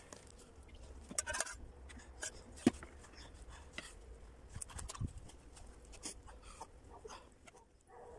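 Scattered soft taps and rustles of food being handled on a wooden cutting board, as toasted ciabatta halves and pickle slices are set down, with one sharper tap about a third of the way in.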